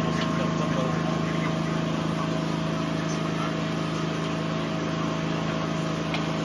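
A steady mechanical drone holding several constant tones, with a few faint ticks over it.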